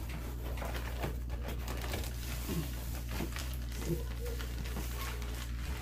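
Cardboard shipping box and plastic-wrapped package rustling and crinkling as the package is handled and pulled out of the box, with many small irregular scrapes and crackles over a steady low hum.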